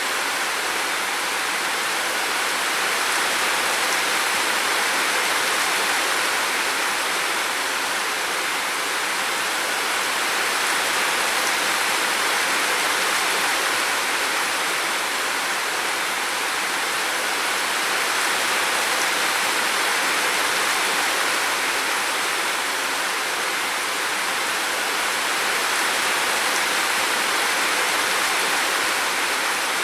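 Steady rushing water noise, even and unbroken, swelling and easing slightly every several seconds.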